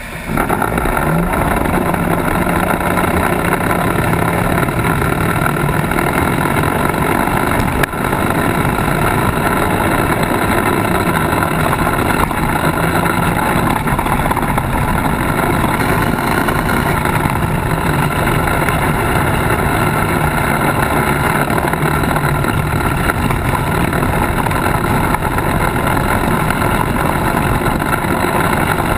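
Polaris RZR side-by-side's engine running steadily as it drives over a dirt track, heard close up from its front bumper, the engine note shifting a little up and down with the throttle. The level drops briefly about eight seconds in.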